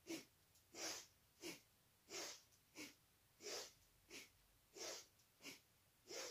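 Fast, rhythmic Kundalini yoga breathing in and out through the nose: short, light sniffing breaths alternating with slightly longer ones, about three every two seconds.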